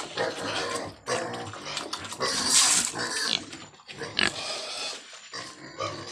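Pigs grunting in short, irregular bursts, with a louder, shriller call about two and a half seconds in.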